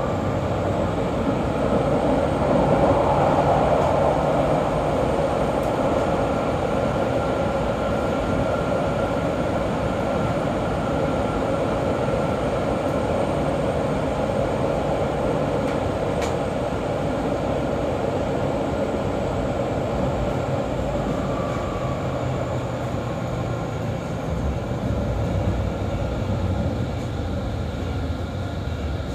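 Inside a Berlin U-Bahn IK-series train running through the tunnel: a steady rumble and hiss of wheels and running gear, with a faint high whine above it. Near the end the train is pulling into the next station.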